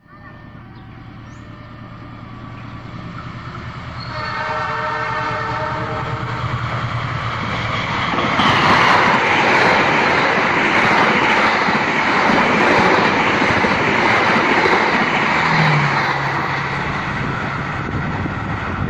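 Passenger train approaching with its diesel locomotive's engine note growing louder, sounding its horn for about three seconds from around four seconds in. It then passes close by with loud, steady wheel and rail noise.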